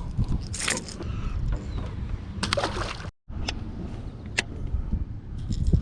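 Water splashing and sloshing around a small fishing boat, with a few short sharp splashes or knocks over a steady low rumble; the sound cuts out completely for a moment about three seconds in.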